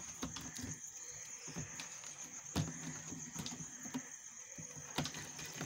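Steady high chirring of crickets, with a few light knocks about a second, two and a half seconds and five seconds in as rope is tied around a plastic jerry can.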